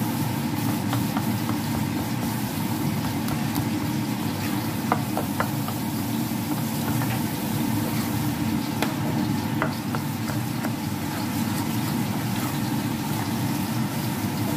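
Thick glutinous rice flour batter being stirred in a stainless steel bowl, with a few light clicks against the bowl, over a steady low hum.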